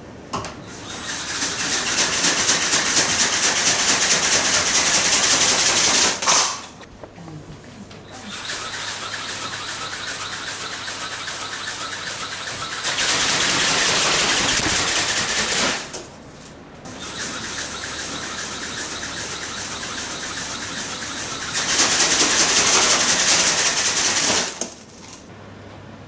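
RC ornithopter's small brushless motor and plastic reduction gears driving the flapping wings: a rapid mechanical rattle that rises and falls with the throttle. It runs loud for about six seconds, stops briefly, then comes back in several stretches that alternate between a lower and a higher setting, with short pauses between them.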